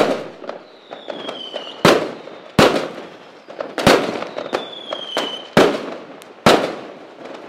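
Fireworks sound effect: six sharp bangs, each followed by crackling, with two whistles that slide down in pitch between them.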